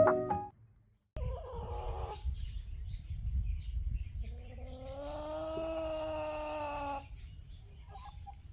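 Goat bleating: a short call about a second in, then one long, drawn-out bleat of nearly three seconds, over a low background rumble.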